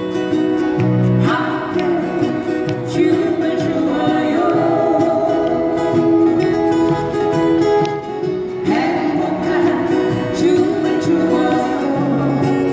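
Several acoustic guitars strumming a song, with singing into microphones, amplified through speakers. The sung line comes in about a second in and again near nine seconds.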